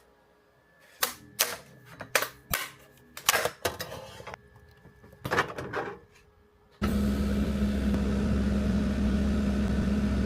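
A run of irregular clicks and taps, then about seven seconds in a machine switches on and runs with a loud, steady hum.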